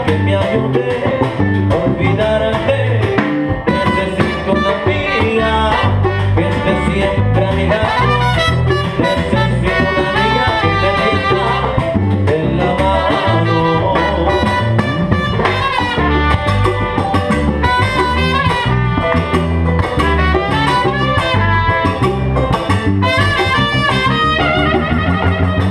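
Live salsa band playing an instrumental passage: a trumpet line over congas, drum kit, electric bass and piano.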